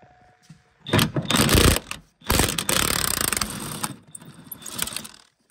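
Ratchet wrench clicking in rapid bursts, loosening the nuts that hold the catalytic converter to the exhaust manifold studs. The loudest stretch runs from about two to four seconds in, then it goes on more quietly.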